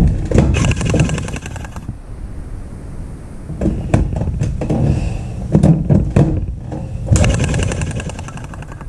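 Battery toy train's motor and gears clattering in two bursts of fast, even clicks, with a few sharp knocks between them. The train does not move along the track, so it appears stalled.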